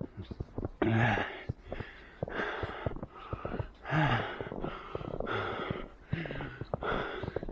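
A runner breathing hard and fast, with a loud breath about every second; several catch in the throat as short voiced gasps. Short crunches of footsteps in snow come between the breaths.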